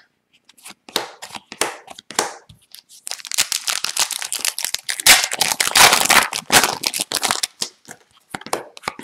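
Upper Deck hockey card pack's foil wrapper torn open and crinkled for about four seconds. Short card clicks come before it and again near the end as the cards are taken out.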